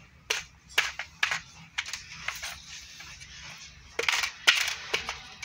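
Hard plastic organizer parts clicking and knocking as they are fitted together into a two-tier rack. It is a string of sharp, irregular clicks, with a louder cluster about four seconds in.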